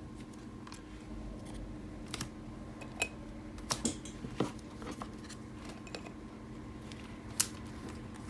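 Football trading cards and their packaging being handled: scattered light clicks and taps, the sharpest about seven seconds in, over a faint steady hum.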